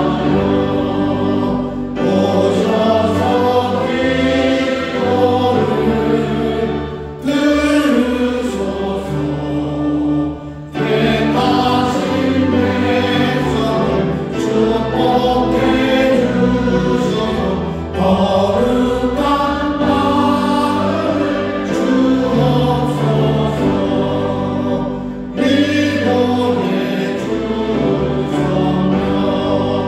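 A church praise team of several singers performing a Korean worship song, backed by keyboard, drums and bass guitar.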